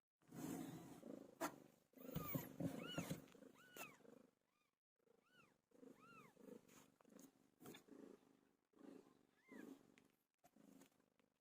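A cat purring in low pulses, with a run of short, high-pitched mews over it in the middle and another near the end.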